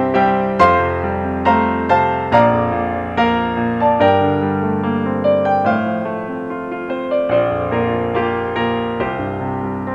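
Slow piano music: a melody of single struck notes, each ringing down, over lower held notes.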